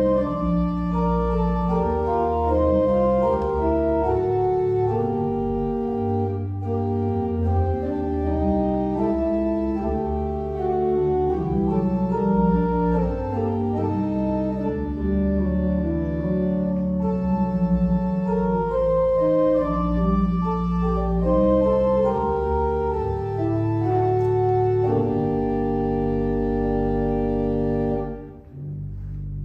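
Organ music: held chords over a sustained bass line. The playing breaks off briefly near the end, then resumes with a new chord.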